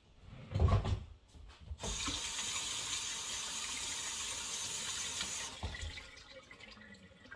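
A dull thump, then a kitchen faucet runs into the sink for about four seconds while hands are rinsed under it, and is shut off suddenly, followed by a smaller knock.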